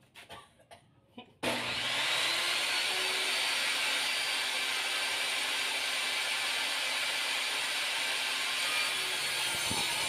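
Lotus 1800 W table saw switched on about a second and a half in, after a few faint clicks at the switch: the motor whines up to speed within a second and then runs steadily at full speed.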